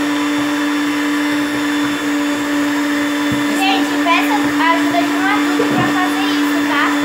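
Electric stand mixer running steadily with a constant motor hum, its beaters whipping powdered chantilly mix and cold milk into whipped cream in the bowl.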